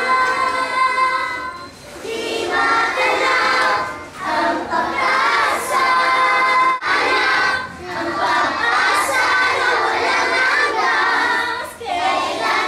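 A group of children singing together, phrase after phrase with brief breaks between.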